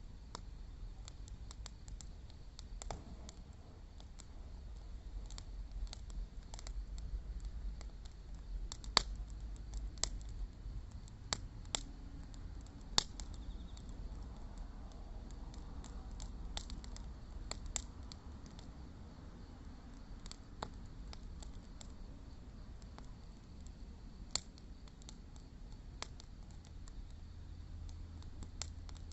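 Wood fire crackling, with irregular sharp pops and snaps scattered throughout, a few louder pops standing out. A faint steady high-pitched insect chirring runs underneath.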